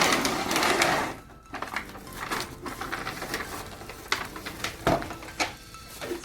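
Surgical stapler's packaging being opened: a loud rustling tear for about a second, then scattered clicks and rustles as the stapler is handled.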